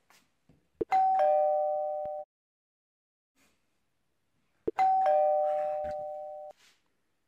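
Electric doorbell rung twice: each press gives a click and then a two-note ding-dong chime, high then low, that rings on for about a second and cuts off sharply. The second ring comes about four seconds after the first.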